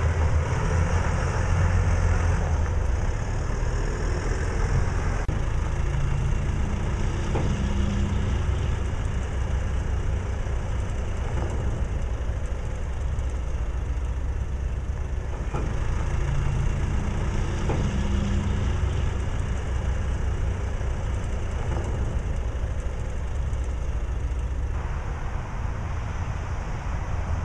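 Aircraft tow tractor's engine running with a steady low rumble while it pulls the jet across the ramp.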